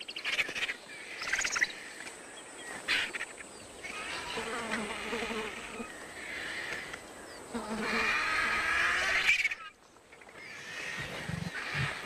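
Lions snarling and growling in bouts over a hippopotamus carcass, competing while they feed; the calls stop briefly near the end, then resume.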